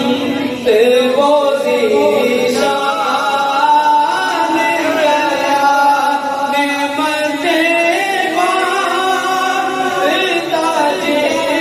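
A male voice singing a naat, an Urdu devotional poem in praise of the Prophet Muhammad, in long, drawn-out melodic lines.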